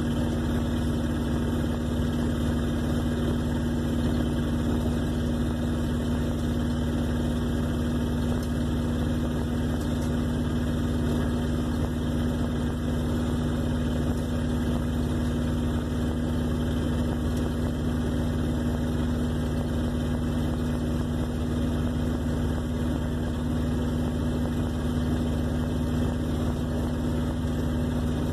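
1958 Plymouth Suburban's engine idling steadily, with an even, unchanging hum.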